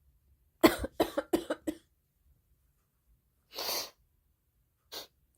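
A girl coughing: a fit of about five quick coughs in a row, then a softer breath about three seconds in and one more short sound near the end.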